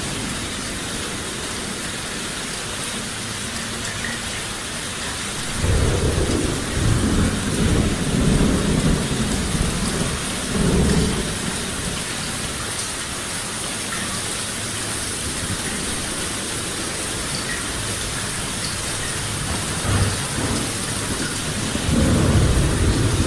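Steady downpour of rain hissing without a break, with low rolling thunder rumbling through it: a long rumble from about five seconds in to about twelve, a short one near twenty seconds, and another starting near the end.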